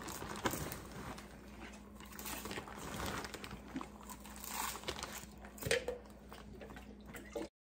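Large plastic popcorn bag crinkling as hands dig into it, with popcorn being crunched and chewed. It cuts off suddenly near the end.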